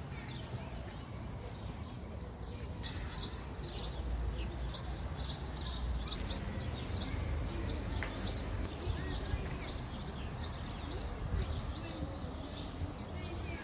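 A small songbird singing a quick series of short, high chirps, starting about three seconds in and going on throughout, over a steady low outdoor rumble.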